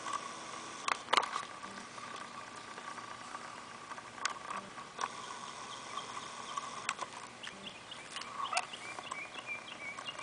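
Faint steady whine of the distant RC cargo plane's motor, with a few sharp clicks. From about three-quarters of the way through, birds chirp in short repeated notes.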